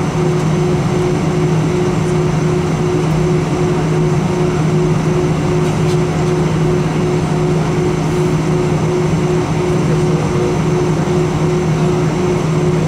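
Steady cabin drone of an Airbus A319 with its jet engines idling on the ground: a low hum with a second, faintly pulsing tone above it, over an even hiss.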